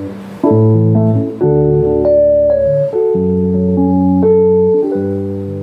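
Korg Kross 2 61 keyboard played in held chords over low bass notes, the chords changing about once a second.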